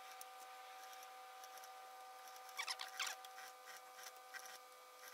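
Industrial sewing machine's motor humming steadily while a mink coat is worked under the presser foot. About halfway through comes a short cluster of sharp scraping clicks, then a few scattered clicks.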